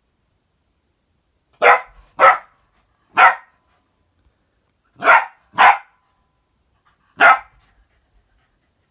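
A dog barking six times in short, sharp single barks: a quick pair, a single, another quick pair and a last single, with silent gaps between.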